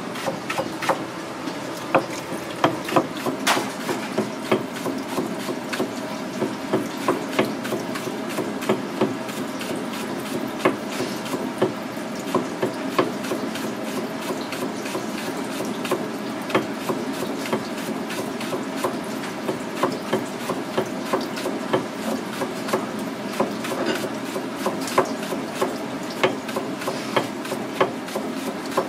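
Kitchen knife chopping a vegetable on a plastic cutting board: quick, uneven knocks one to three a second. Under them, tap water runs steadily into a steel colander in the sink.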